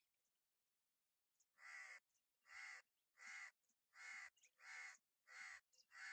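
Crow cawing: a run of about seven caws in quick, even succession, a little under a second apart, starting about a second and a half in.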